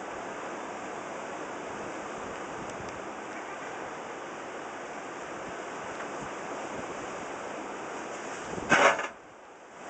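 Steady rushing noise of strong wind and rough sea waves, with a brief, much louder burst near the end.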